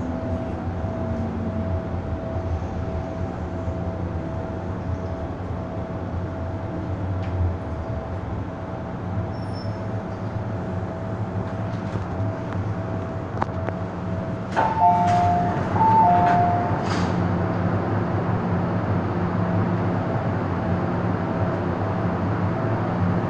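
Hong Kong MTR M-Train carriage running and pulling into a station, with a steady electric hum and a held tone from the train's equipment. About two-thirds of the way in, a two-note electronic chime sounds twice, high then lower.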